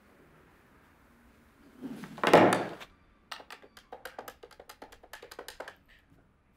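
Quick presses on a desk telephone's keypad: about fifteen rapid clicks over some two and a half seconds, dialling a number. A single loud, short burst of noise comes just before the dialling starts.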